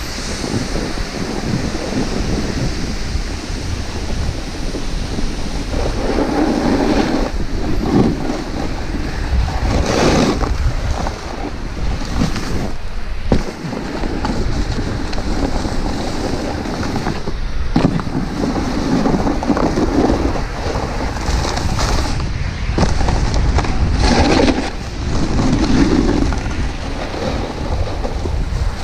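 Snowboard riding downhill: wind rushing over a mouth-mounted action camera's microphone, mixed with the board's edges scraping across snow. The scrape swells louder in several separate surges as the rider turns.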